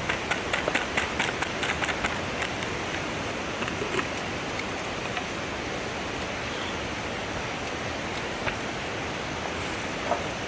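Mountain stream rushing steadily, with a quick run of light sharp clicks in the first two seconds and a few more scattered later.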